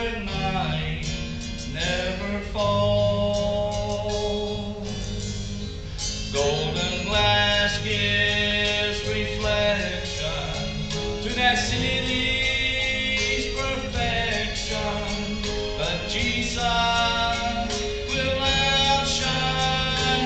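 A man singing a gospel song into a handheld microphone over instrumental accompaniment.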